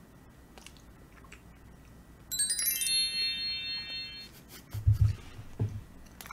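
A chiming 'success' jingle sound effect added in the edit: a quick run of bright, bell-like ringing notes that starts about two seconds in and lasts about two seconds. A few low thumps follow near the end.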